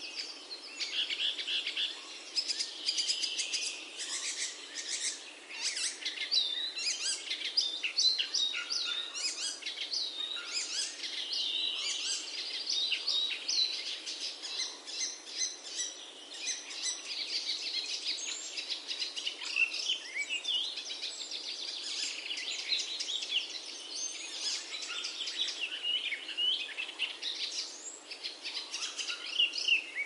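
A chorus of small songbirds chirping and singing: a dense run of quick, high chirps and short whistles that overlap without pause.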